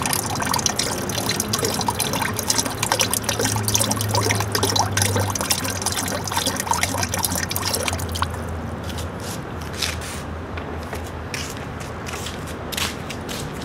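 Bleach poured from a plastic jug splashing into a bucket of water full of CDs and DVDs. The stream stops about eight seconds in, leaving scattered drips.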